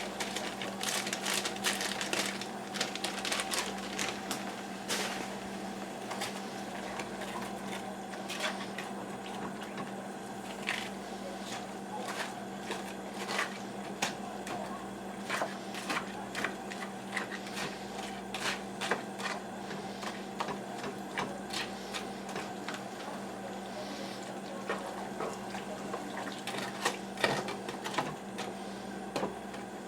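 Pot of chicken, bok choy and carrot simmering in sauce on the stove, with irregular pops and crackles over a steady low hum.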